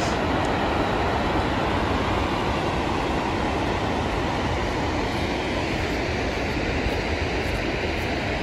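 Steady rumbling road noise of a moving vehicle, heard from inside the cabin.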